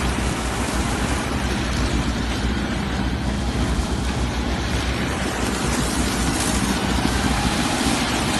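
Whole-stick sugarcane harvester working: a steady, loud engine drone under a dense rushing noise from the machine.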